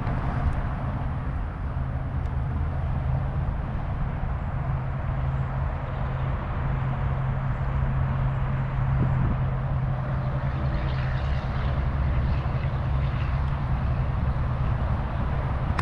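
Steady low mechanical hum over a continuous rushing noise, unchanging throughout.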